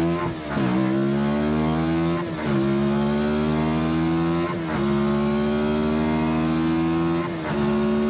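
1986 Pulse Litestar's engine pulling hard under full acceleration. Its pitch drops sharply at each of four upshifts about two seconds apart and climbs again between them.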